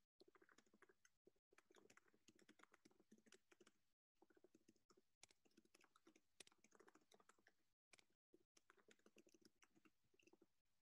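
Faint typing on a computer keyboard: quick, irregular clicks with brief breaks about four and eight seconds in.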